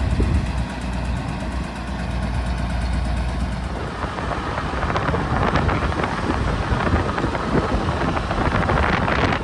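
Wind rumbling on the microphone over the road and engine noise of a moving motorbike, growing rougher about halfway through.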